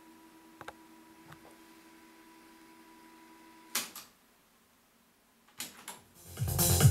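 Philips F6121 cassette deck: a steady low motor hum cuts off with a mechanical clunk of a piano-key transport button about four seconds in. After a short silence, more key clunks follow, and music from the tape starts playing near the end, rising quickly in level.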